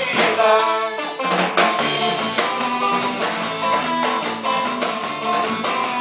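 Instrumental passage of a Christian pop-rock song: guitar over a drum kit keeping a steady beat, without singing.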